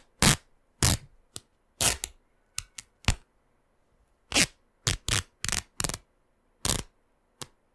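Cloth being torn apart in about fifteen short, irregular rips, with a pause of about a second around the middle: a tearing sound effect for a garment being rent.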